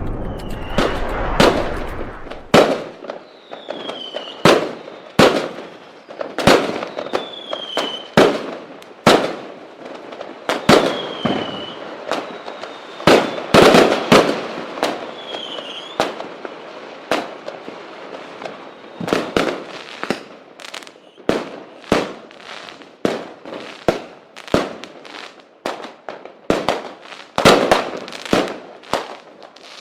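Firework rockets (cohetes) going off one after another: sharp bangs at an irregular pace of about one to two a second, with a short falling whistle now and then.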